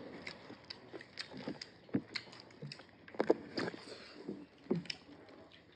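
Mukbang eating sounds: scattered chewing and lip-smacking clicks, with small taps and rustles of rice and greens being eaten by hand from plates.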